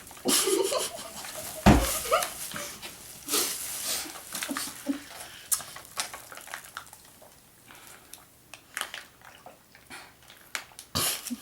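Juice-pouch drinking noises: slurping and sucking through the straws and gulping, with short throaty vocal sounds mixed in, most of them in the first few seconds, plus a sharp thump about two seconds in.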